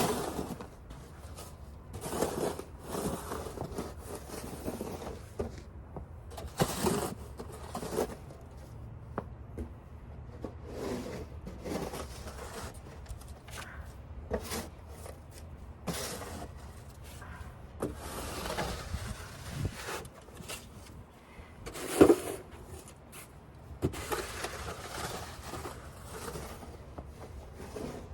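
Snow shovel scraping and pushing snow over pavement in repeated irregular strokes, with footsteps in snow and a few sharp knocks, the loudest about 22 seconds in.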